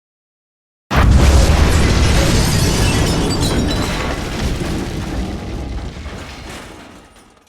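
Bomb explosion sound effect: a sudden blast about a second in, with a deep rumble and crackling debris that fade out over about six seconds.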